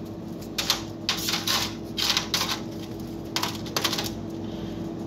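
Round wafer cookies being set down one by one in a thin disposable aluminium foil pan: irregular light clicks and crinkles of the foil, with a cluster about a second and two seconds in and a last few near the four-second mark.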